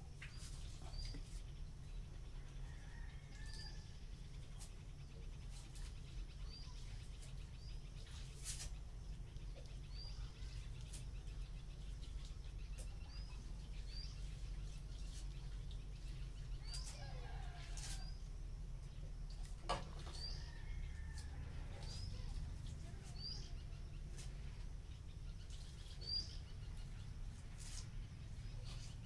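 A bird chirping, a short high rising call repeated roughly once a second, over a steady low hum. A few sharp clicks stand out, the loudest about two thirds of the way through.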